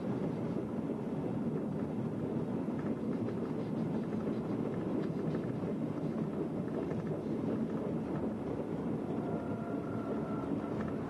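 Motorised railway works drezine running along the track: steady engine and wheel-on-rail noise. A faint high whine comes in near the end.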